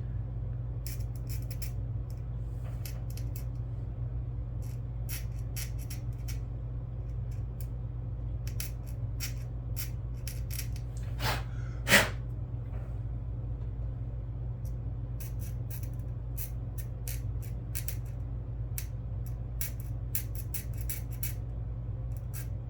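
Scattered small clicks and light scraping of a blade and fingers working on plastic model-kit parts, over a steady low hum. Two louder clicks come at about eleven and twelve seconds in. The scraping exposes bare plastic for gluing.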